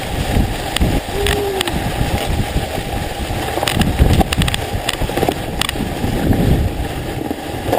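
Sledge sliding down a snowy, grassy slope: a continuous rumble of the runners over snow, with scattered knocks from bumps and wind buffeting the microphone.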